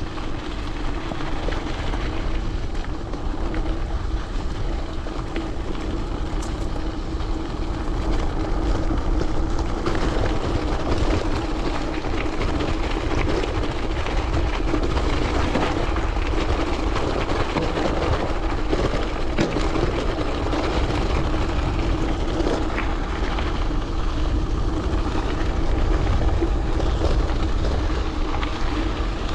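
Wind buffeting the microphone of a chest-mounted action camera on a moving gravel bike, over the steady hum of the bike's tyres rolling.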